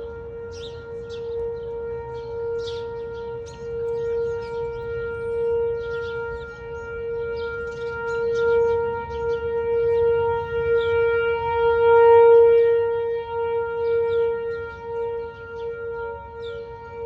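Whelen 4004 electronic outdoor warning siren sounding a steady alert tone during a tornado siren test. The pitch holds level while the loudness swells and fades, loudest about three-quarters of the way through.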